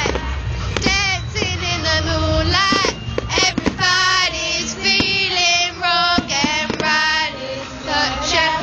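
A group of girls singing loudly together over music, with a few sharp cracks partway through.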